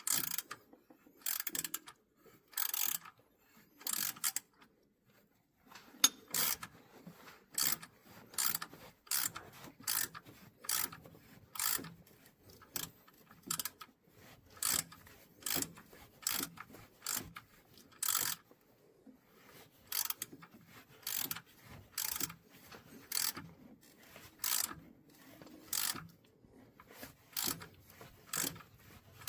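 Hand ratchet wrench being worked back and forth: a steady series of short clicking bursts, about one a second, as the ratchet turns a fastener on the engine.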